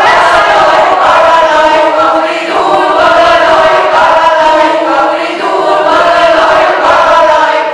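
Mixed choir of women and men singing together in sustained phrases, with the song's last chord released at the very end.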